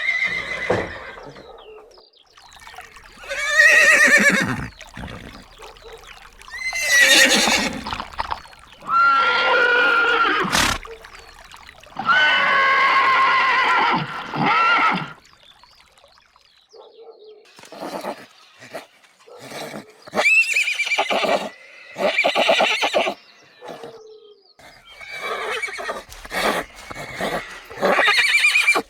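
Horses neighing: several separate whinnies, each one to three seconds long and wavering down in pitch, with short quiet gaps between them.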